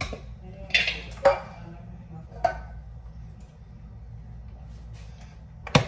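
Metal cooking pots and utensils clanking and knocking four times in a kitchen, with a steady low hum underneath.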